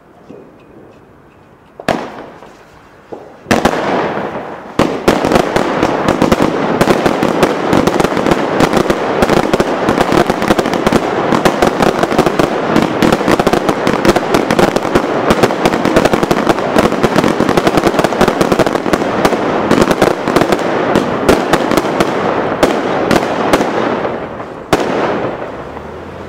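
Korsarka "Big Crackles" six-shot fan firework going off: two single bangs about two and three and a half seconds in. Then comes a dense, continuous crackle of many rapid pops for some twenty seconds, which thins out to scattered pops and dies away near the end.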